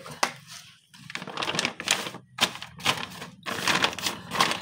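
A brown paper bag rustling and crinkling in irregular bursts as it is pressed and smoothed flat inside a plastic pet carrier, with a few light clicks from handling the carrier's wire door near the start.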